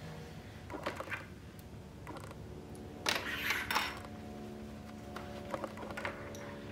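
Hands handling and folding stretchy fabric and elastic: soft rustling with scattered small clicks, and a louder rustle about halfway through. A low steady hum comes in just after it and carries on.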